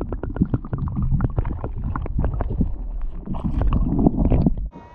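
Water sloshing and bubbling around a submerged action camera, with many sharp clicks and knocks over a muffled, rumbling churn; it drops off suddenly near the end.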